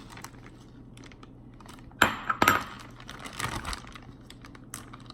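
Scattered light clicks and rustling as the rest of a dry seasoning mix is added to a plastic freezer bag of raw chicken, with a few louder crackles about two seconds in.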